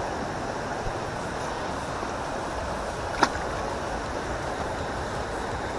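Steady rushing of flowing water in a small channel, with one sharp click a little past halfway.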